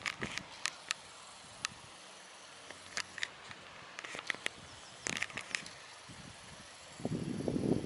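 Quiet open-air background with scattered short, sharp ticks, then a denser low rustling noise beginning about seven seconds in.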